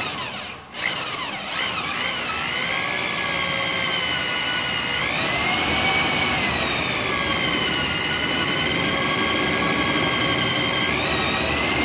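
Corded electric drill running under load, a half-inch twist bit boring through a steel reinforcement plate, slow going through the thick plate. A steady whine whose pitch rises about five seconds in, sags slowly, and climbs again near the end.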